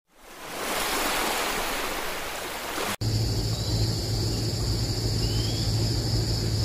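Sea waves washing over a rocky shore, a steady rush that fades in over the first second. About three seconds in it cuts to a different steady ambience: a low hum with a thin, steady high-pitched drone above it.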